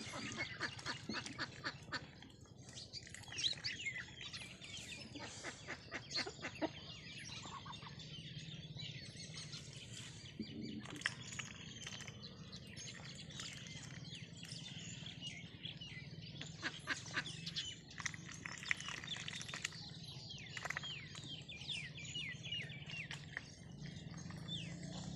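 Domestic ducks feeding in shallow water, their bills dabbling at the surface in quick runs of clicks and splashes, with birds chirping.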